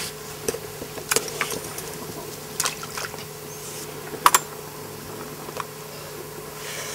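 Irregular clicks from a spincast fishing reel being handled and cranked, about half a dozen, with a quick double click the loudest, over a faint steady hum.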